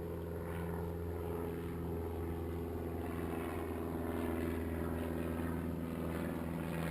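Supermarine Spitfire flying over, its piston engine giving a steady, even hum.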